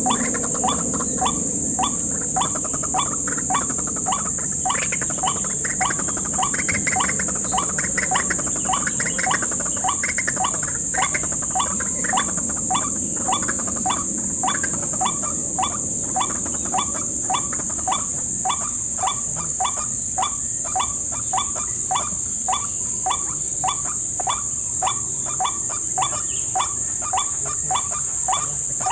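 White-breasted waterhen calling its ruak-ruak note over and over, about two short notes a second, with no break. A steady high insect drone runs underneath.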